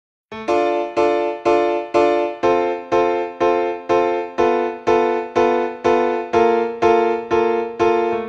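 Background music: a keyboard playing the same chord in steady, evenly spaced strikes, about two a second.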